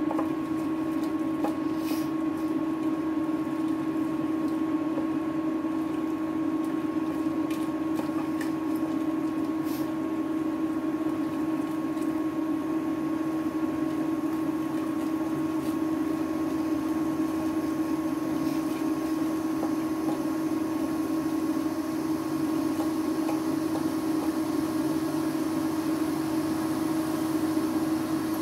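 Steady hum of an induction cooktop heating a pan of water, with a few soft knocks and squishes of a dal masher working boiled mung dal in an aluminium pot.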